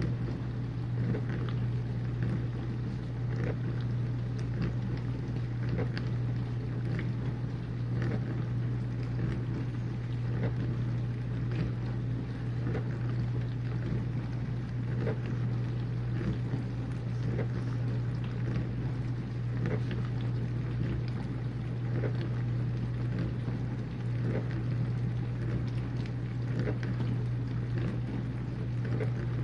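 Whirlpool dishwasher running mid-cycle: a steady motor hum from the wash pump with water spraying and splashing against the inside of the tub in irregular spatters.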